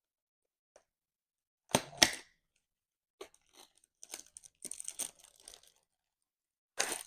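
Packaging being torn open by hand: two sharp rips about two seconds in, then crinkly rustling as the wrapping is handled, and another tear near the end.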